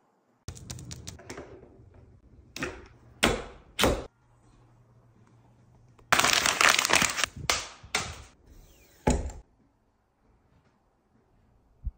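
A string of sharp clacks and knocks, with a dense rattling burst of about a second a little past the middle.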